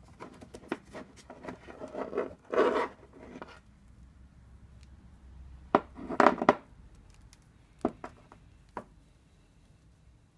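A rusty bicycle chain handled over a wooden workbench, its links clinking and rattling irregularly. There are two clusters of clinks and knocks, then two single clicks near the end.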